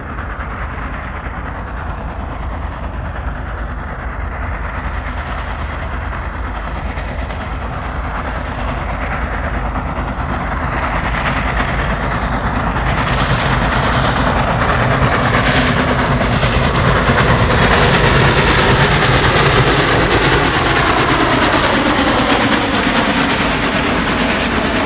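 Union Pacific 4014 "Big Boy" 4-8-8-4 steam locomotive and its train approaching and passing, growing steadily louder to a peak a little past the middle.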